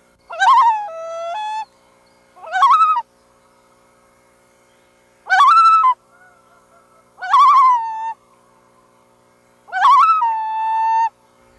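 Loon calling five times in a row. Each call opens with a quavering, wavering burst, and several end in a held or stepped-down note.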